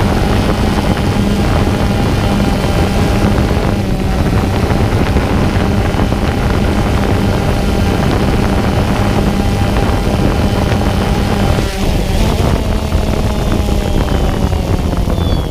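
Camera drone's propellers and motors humming steadily in flight. About twelve seconds in the hum dips and changes as the drone comes down onto the asphalt, and the pitch then falls as the motors slow.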